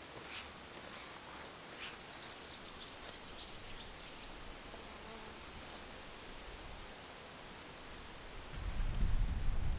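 Insects trilling in the grass: a high, buzzy trill that comes three times, each burst about one and a half seconds long. Footsteps on a dirt track in the first two seconds, and a low rumble takes over near the end.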